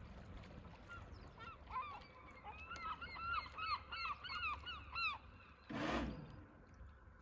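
A gull calling: a fast run of about a dozen short, arched, yelping notes, about three a second, then a brief rush of noise near the end.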